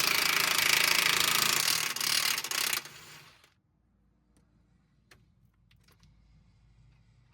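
Impact wrench running in one continuous hammering burst that stops about three seconds in, followed by a few faint clicks and knocks.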